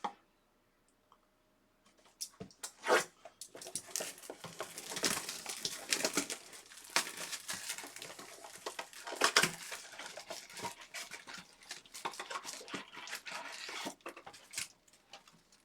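A trading-card box being torn and unwrapped: irregular crackling and tearing of packaging with scattered clicks and rustles. It starts about two seconds in and stops shortly before the end.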